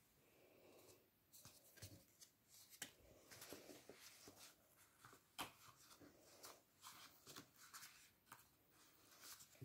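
Faint rustling, sliding and soft clicks of paper and card being handled, as a folded paper insert is slid out of a card pocket and unfolded.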